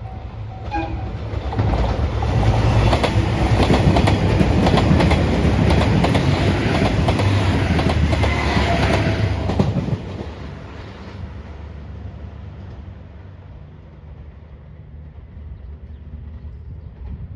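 A train passes a level crossing at speed, its wheels clacking rapidly over the rail joints, and the noise cuts off abruptly when the last car clears after about ten seconds. The crossing's warning bell rings at the start before the train drowns it out.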